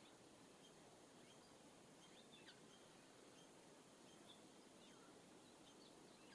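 Faint, distant songbird chirps and short calls, with a couple of quick downward-sliding notes, over a quiet outdoor hush.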